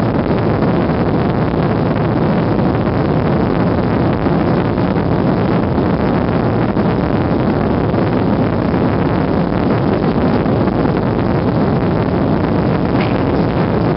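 Jet airliner cabin during the climb after takeoff: a steady, loud roar of the engines and the rushing airflow, heard through the fuselage.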